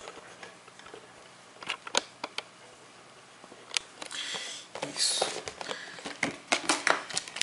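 Handling noise: scattered clicks and knocks as the camera and a cardboard phone box are moved. About four seconds in there is a stretch of scraping rustle as the box is opened and the plastic-wrapped phone inside is handled, followed by more sharp clicks.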